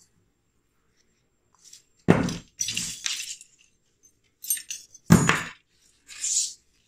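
Bare steel Martini-Henry rifle action parts clunking and clinking as they are handled and set down on the bench. There are two heavier clunks, about two and five seconds in, with lighter metallic clinks between them and a short scrape near the end.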